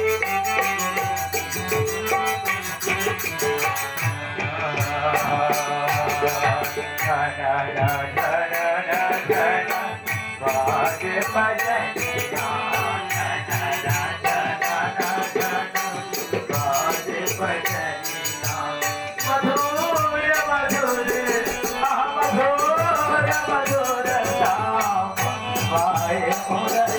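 Devotional music: a man's singing voice through a PA system over a steady jingling percussion beat.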